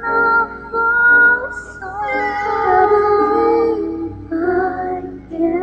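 A man singing a slow song without accompaniment, holding long notes that glide in pitch, with short breaths between phrases.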